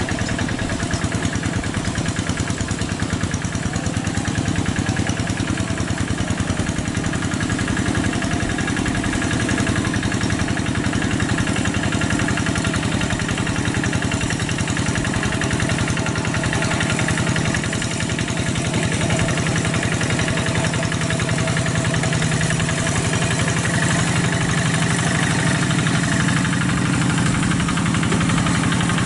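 Two-wheel hand tractor's single-cylinder diesel engine running steadily with a fast, even beat as it pulls a plow through a wet rice field.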